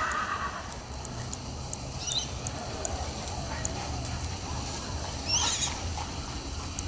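Two short rising bird chirps, one about two seconds in and a louder one a little after five seconds, over a steady low outdoor rumble.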